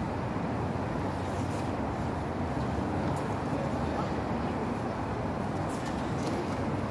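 Steady hum and hiss of a large indoor tennis hall's room noise, with faint murmuring voices and a few light knocks.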